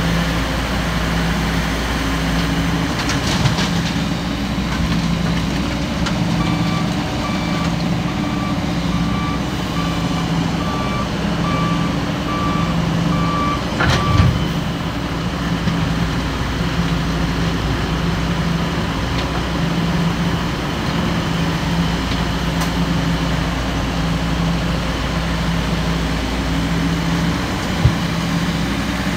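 Heavy diesel machinery running steadily, with a low tone pulsing on and off about once a second. A reversing alarm beeps repeatedly for several seconds in the first half and stops with a metallic knock about halfway.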